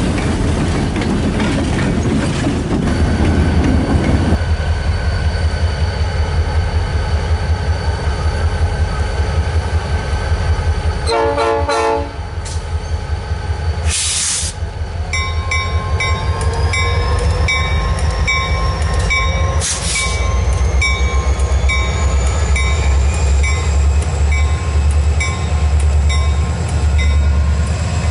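Diesel-electric locomotives led by Southern SD40 3170 running with a steady low engine rumble. About eleven seconds in there is a short horn blast. In the second half the locomotive bell rings steadily, about three strokes every two seconds, while a whine slowly rises in pitch as the engine works harder.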